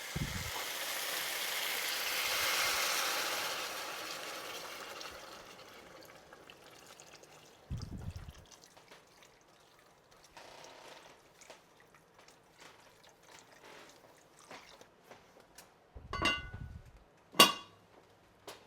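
A rush of running or pouring water that swells and then fades away over about five seconds, followed by scattered soft clicks, a dull thud, and two sharp knocks near the end, the second one loud.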